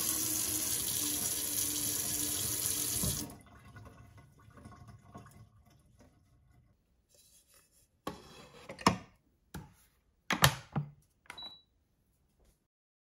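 Kitchen tap running into a rice cooker's inner pot as rice is rinsed, stopping about three seconds in. Later come a few sharp clicks and knocks as the rice cooker is loaded and shut, with a short high beep near the end.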